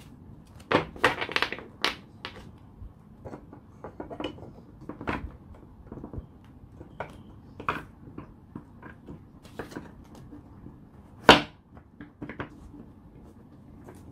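Hands handling and sorting packaged small products: scattered rustles, taps and clicks, with a short burst of handling about a second in and one sharp knock near the end.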